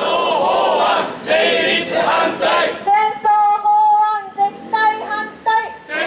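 Protesters singing together in unison, with a note held for over a second about three seconds in.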